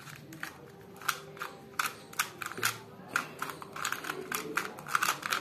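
Plastic 2×2 speed cube being turned quickly by hand, its layers clicking and clacking with each turn, several irregular clicks a second.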